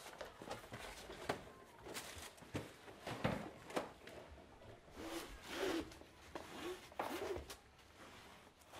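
Things being handled and shifted on cupboard shelves: scattered light knocks, clicks and rubbing as boxes and items are moved around.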